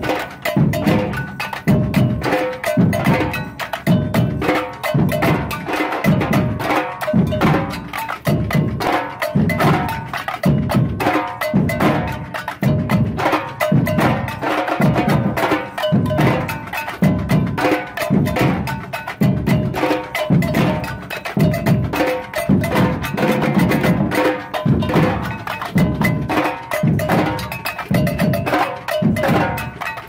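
Samba percussion band playing a steady groove: deep bass drums on the beat under snare drums and a bell part.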